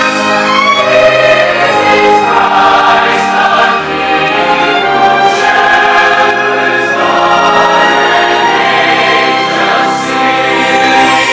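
A large choir singing with a live orchestra, loud and sustained throughout.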